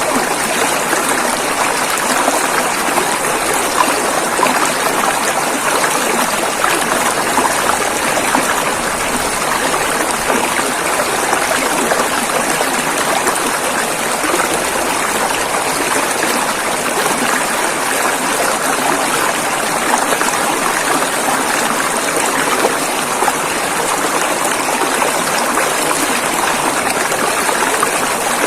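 Rushing river water flowing over rocks, a steady, even rush with no breaks or changes.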